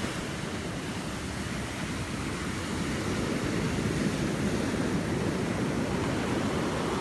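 Ocean surf: a steady rushing wash of waves, growing a little louder about three seconds in.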